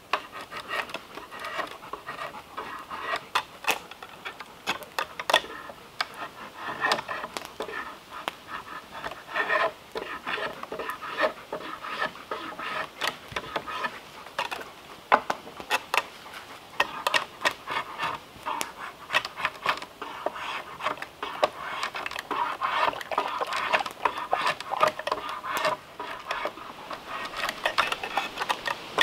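Drawknife shaving the edge of a pine board clamped in a shaving horse: repeated short scraping strokes of steel on wood.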